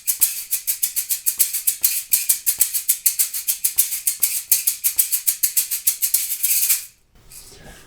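Shaker played in a fast, even groove of about six strokes a second, with the second hand brought in on chosen beats to accent them. The playing stops near the end.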